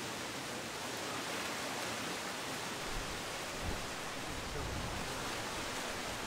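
Steady outdoor background hiss, with brief low rumbles of wind on the microphone about three and four and a half seconds in.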